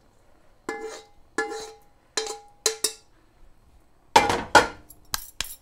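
Metal spoon knocking and scraping against a wok and cooking pot, about five ringing knocks in the first three seconds. Louder scraping and clatter follow near the end.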